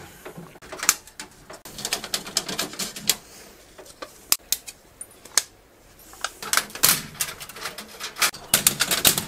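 Thin 0.1 mm stainless steel sheet crinkling and clicking as it is handled and lifted off a laser cutter's honeycomb bed: a string of irregular sharp clicks, busier in the second half.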